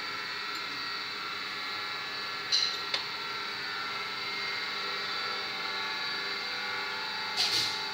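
Steady machine hum of workshop equipment, made of several fixed tones, with two short sharp clicks about two and a half and three seconds in and another near the end.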